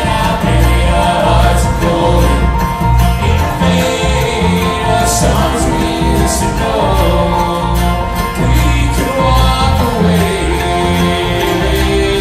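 Bluegrass string band playing live: five-string banjo, acoustic guitar, mandolin and upright bass, with the bass keeping a steady pulse.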